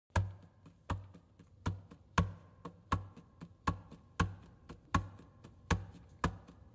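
Sharp percussive clicks, each with a short low thump, in a repeating syncopated long-long-short rhythm with fainter ticks between: a sparse percussion intro to the backing music.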